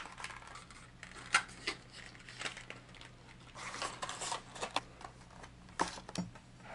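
Clear plastic lure packaging being handled while a hollow-bodied topwater frog lure is taken out: scattered light clicks and crinkles, with a short run of crinkling a little past the middle.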